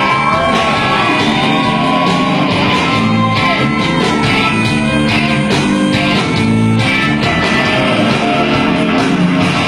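Live rock band playing an instrumental passage: guitar and bass over a steady drum beat, with no lyrics sung.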